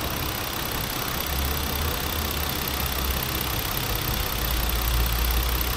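Car engine idling steadily with an even low hum, freshly restarted after its oil system was cleaned and not yet fully warmed up. It runs smoothly; the mechanic says it sounds like a new car's engine.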